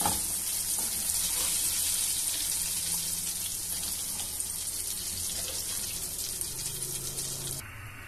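Hot oil sizzling steadily as flour-coated chicken pieces deep-fry in a wok; the sizzle cuts off suddenly near the end.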